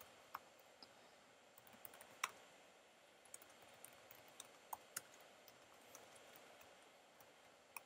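Faint computer keyboard typing: irregular single keystrokes clicking, a few a second with short pauses, one louder key strike a little over two seconds in.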